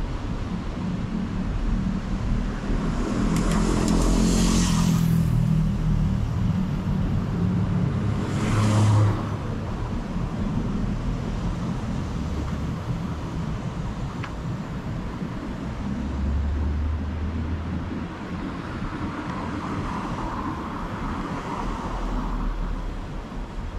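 Street traffic: cars passing one at a time on the adjacent road, with the loudest pass about four seconds in and another about nine seconds in. A steady low traffic rumble runs underneath.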